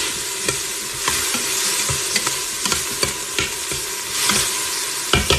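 Chopped onion, carrot, celery and garlic sizzling as they sauté in a stainless steel pot, stirred with a spoon that scrapes and clicks against the pot. A few louder taps come near the end.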